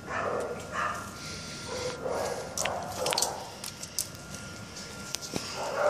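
Dog giving short cries several times, with clicks and rustling from the phone being handled against its fur.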